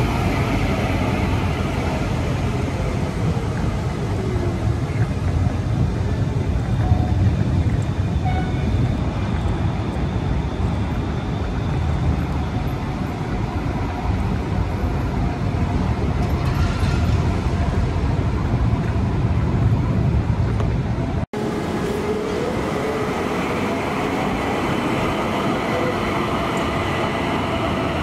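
HTM BN GTL8 tram in the station, with a steady rumble of motors and wheels on the rails. After a sudden break about two-thirds of the way through, a faint whine rises and falls.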